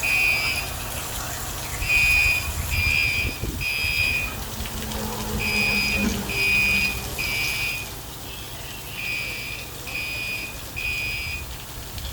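Building fire alarm sounding loudly in the temporal-three evacuation pattern: groups of three short, high beeps, each group followed by a brief pause, repeating steadily. Steady low rumbling noise runs beneath it.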